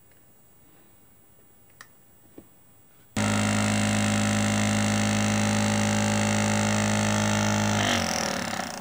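Small electric motor in a cardboard diesel-engine model switching on abruptly about three seconds in and running at a steady speed with a loud hum, then switched off near the end and winding down with falling pitch. Two faint clicks come before it starts.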